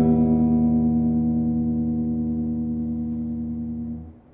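Electric guitar chord played through an amplifier speaker, ringing out with its strings left to vibrate and fading slowly. About four seconds in the strings are damped by hand and the sound cuts off.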